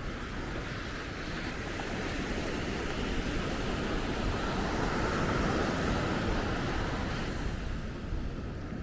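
Sea surf washing onto a beach, a wave swelling to its loudest about halfway through and easing off, with wind buffeting the microphone.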